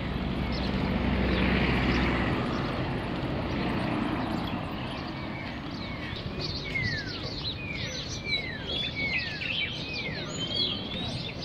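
A car drives past in the first couple of seconds over street traffic noise. Then birds chirp busily, many short calls each sliding downward in pitch, overlapping through the second half.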